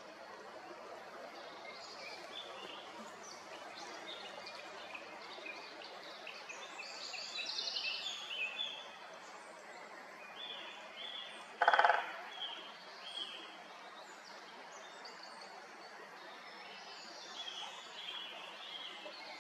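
Small birds chirping and calling in the background, with one brief loud burst of rapid pulses a little past the middle.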